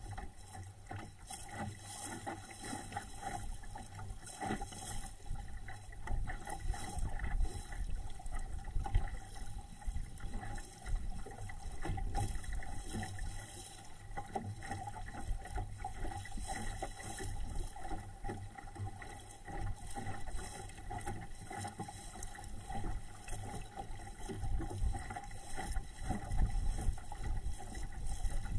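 A small home-built SCAMP sailboat moving under sail through choppy water: water splashing and rushing along the hull, with an uneven low rumble.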